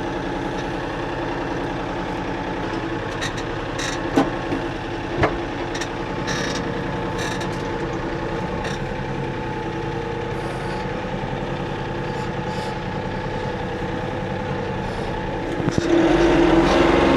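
Kioti 3520 compact tractor's diesel engine idling steadily, with two short knocks about four and five seconds in. About a second before the end the engine gets clearly louder and heavier.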